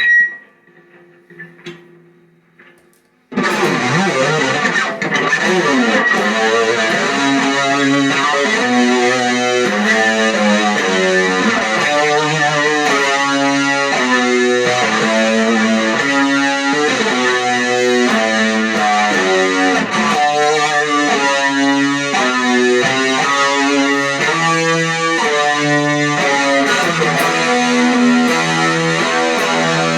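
Electric guitar played through effects with distortion. After a quiet gap it comes in suddenly about three seconds in, with a dense run of sustained notes changing every half second or so.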